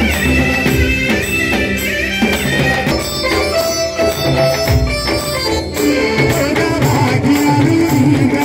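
Devotional bhajan music with a melody line over steady hand-drum percussion.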